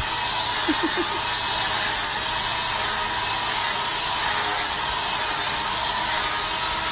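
Cordless angle grinder running steadily with a constant high motor whine, its pad rubbing over a round piece on a wooden board.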